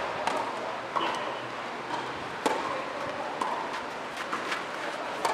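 Tennis rally: sharp pops of the ball coming off the rackets, the loudest about two and a half seconds in, with fainter ticks between them.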